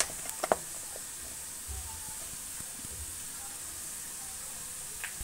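Potatoes frying in oil in a kadai, a low steady sizzle, with a few light clicks of a steel spoon against the steel masala pot in the first half-second.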